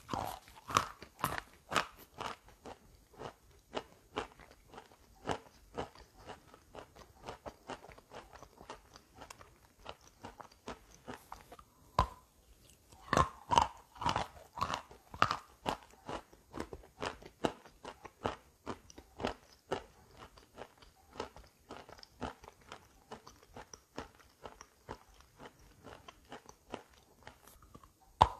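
Close-up chewing and crunching of wet chalk coated in gray clay paste: a steady, irregular run of crisp crunches, with a sharper crack about twelve seconds in and a loud bite into the chalk lump near the end.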